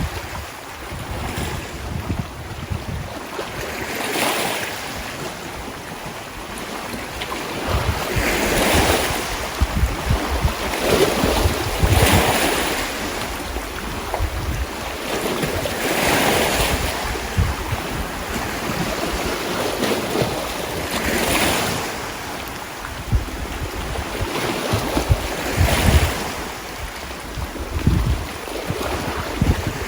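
Sea waves washing in, swelling and falling back every four to five seconds, with wind rumbling on the microphone.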